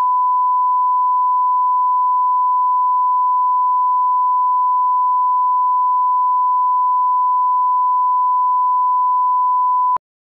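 Steady 1 kHz sine-wave line-up tone, the reference tone that goes with SMPTE colour bars, held at one pitch and cutting off abruptly near the end.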